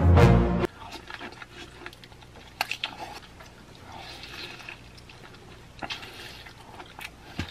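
Music that cuts off under a second in, then close-up wet biting and chewing of a crab leg coated in thick cheese sauce, with a few sharp clicks of the mouth.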